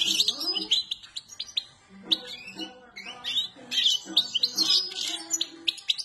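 European goldfinch twittering: a rapid, jumbled run of high chirps and trills with quick pitch glides, loudest at the start and again in the second half.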